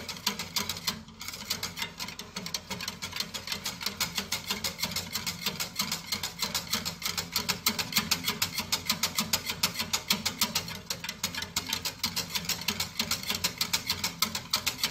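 Metal whisk beating quickly against the sides of a stainless steel saucepan, a fast, even clatter of several strokes a second. It is stirring a thickening lemon sauce over the flame, kept moving constantly so it doesn't burn.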